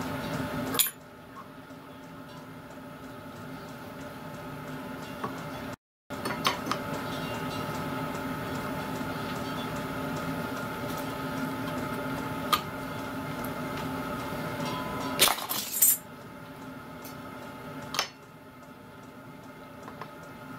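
Brass slide valve and steel valve-chest parts of a miniature steam locomotive cylinder clicking and clinking as they are handled and fitted, a few sharp metallic clicks with a small cluster about three-quarters of the way through. A steady hum runs underneath.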